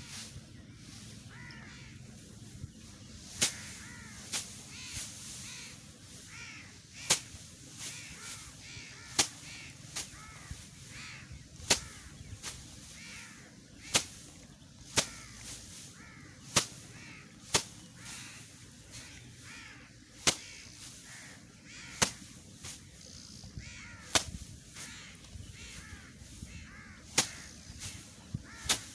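Rice stalks being cut by hand: sharp, crisp snaps every one to two seconds over a repeated rasping.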